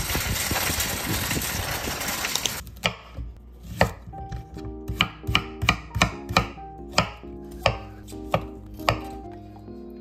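Steady outdoor hiss and rumble, which cuts off about three seconds in. Then a chef's knife chops through broccoli stalk on a wooden cutting board: a dozen or so sharp chops, about two a second, over soft background music.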